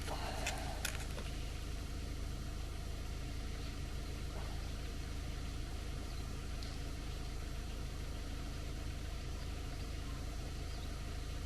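Steady low background hum, with two small clicks or knocks about half a second and just under a second in.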